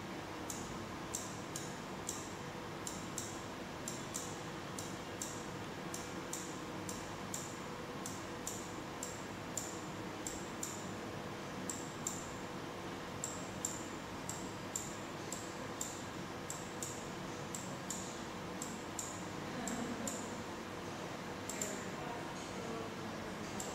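Computer mouse button clicks, a quick irregular run of about two a second, as slider values are stepped up and down in a DVR settings menu, over a steady low hum.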